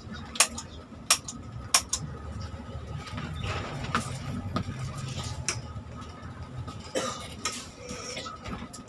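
Inside a moving bus: a low engine rumble with sharp rattles and clicks from the cabin, several of them in the first two seconds, over a faint steady whine.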